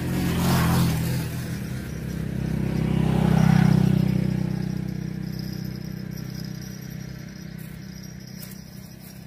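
A motor vehicle passing by: its engine hum swells, peaks about three and a half seconds in and slowly fades away, after a shorter swell with hiss about half a second in.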